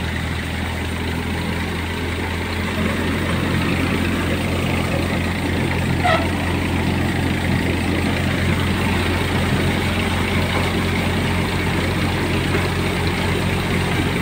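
Threshing machine running under load, giving a steady mechanical drone with an even low hum from its drive, which grows slightly louder a few seconds in.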